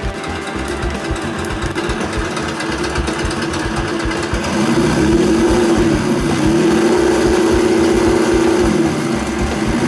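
Simulated engine sound from an ESS-DUAL+ engine sound simulator playing through its speaker, running at idle and then revving up and down a few times in the second half as the throttle is worked.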